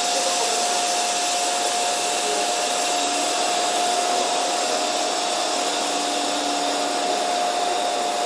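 Electric trains standing at a platform with their cooling blowers running: a steady blowing noise with a steady whine over it.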